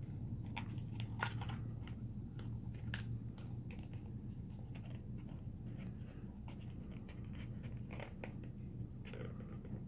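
Paperboard box being folded and its tuck flaps worked in by hand: scattered soft crackles and clicks of the card over a steady low hum.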